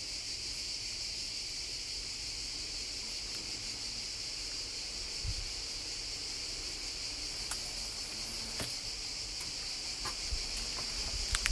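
Cicadas singing in a steady, continuous high chorus, with a few faint clicks.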